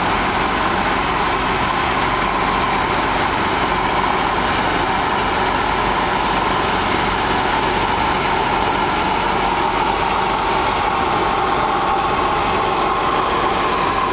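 Light aircraft's piston engine and propeller running steadily in cruise, heard on board with rushing air noise.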